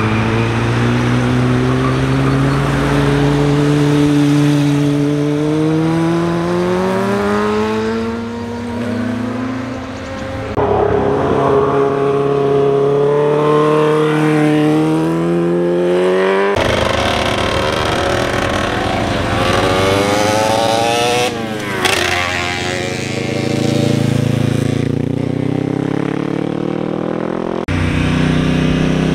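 Motorcycle engines, among them a Suzuki sport bike, accelerating hard out of tight bends one after another, each engine's pitch climbing steadily as it revs. About three-quarters of the way through, one bike passes close with a quick rise and fall in pitch.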